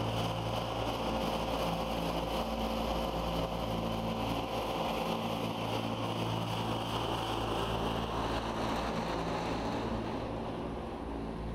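Steady low machine hum with an even haze of air noise, unchanging throughout.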